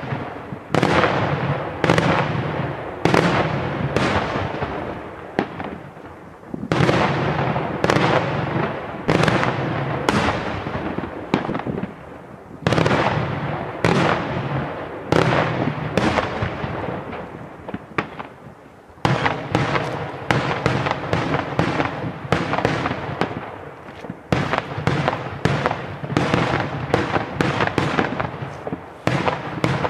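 Daytime aerial firework shells bursting in the sky, one sharp bang after another, each trailing off in echo, about one a second. About two-thirds in the bangs come faster, several a second, in a quick rattling run.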